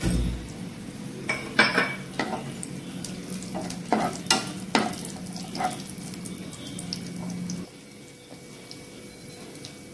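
Cashews and raisins frying in hot ghee in a nonstick pan, a faint sizzle, with a spatula scraping and knocking against the pan several times in the first half. A low background hum cuts off about three-quarters of the way through.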